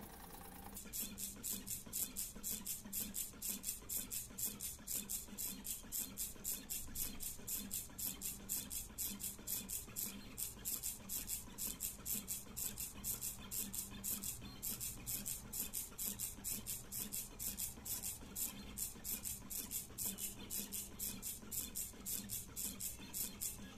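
A DIY XY CNC pen plotter drawing, its axis motors running in a fast, even pulsing rhythm over a steady low hum as the pen carriage moves over the paper.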